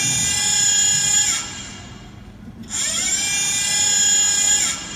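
A high electric whirring like a drill motor spinning up, heard twice for about two seconds each time; it rises in pitch as it starts, then holds steady before cutting off.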